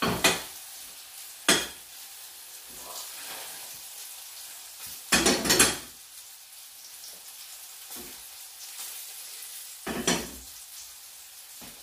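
Sea bass fillets sizzling steadily in a frying pan. Sharp metal clinks of a utensil against the pans come about a second in, in a quick cluster around the middle, and twice near the end.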